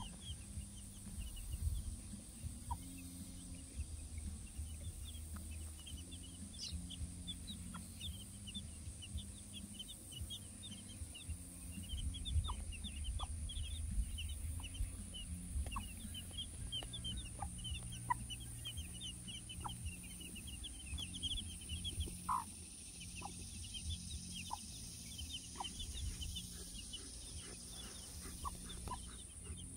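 A brood of two-day-old chicks peeping without pause in quick short high chirps, with a barred hen clucking now and then.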